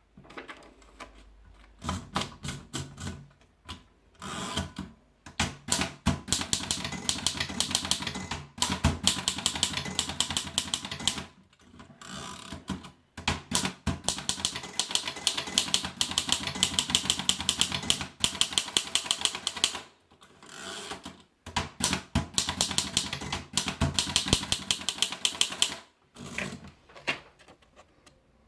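Erika Model 5 manual portable typewriter being typed on: rapid runs of key strikes lasting a few seconds each, broken by short pauses.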